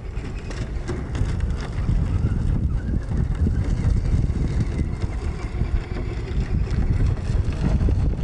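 Wind buffeting the microphone in a loud, uneven low rumble, over the faint whine of a Traxxas 1/10 Ford Fiesta ST rally car's brushed electric motor rising and falling as the RC car is driven hard on dirt.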